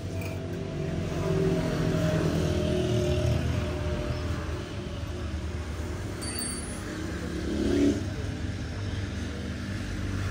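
Engine of a motor vehicle running on the road, swelling and fading as it passes. Near the end the pitch climbs as it accelerates, then drops away suddenly.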